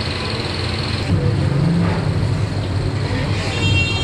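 Busy street noise of running engines and traffic, with a low engine tone swelling about a second in. A brief high-pitched tone sounds near the end.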